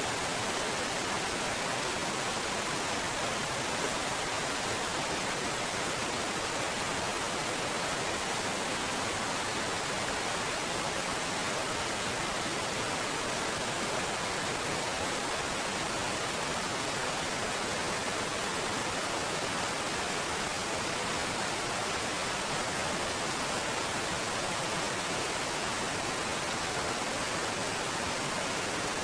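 Waterfall pouring and splashing over rock: a steady, even rush of falling water.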